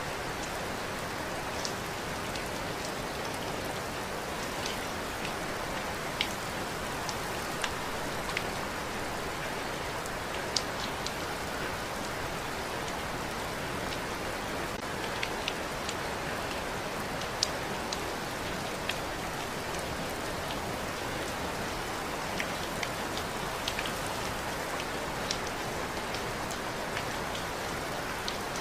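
Steady rain falling, an even hiss with scattered sharp drips and taps of individual drops landing close by.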